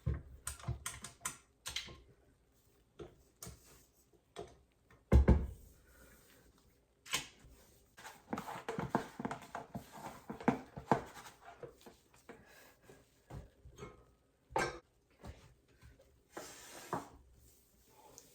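Kitchen clatter: items being handled and set down on a counter, with scattered clicks and knocks, a loud thump about five seconds in, and a busy run of clattering a few seconds later.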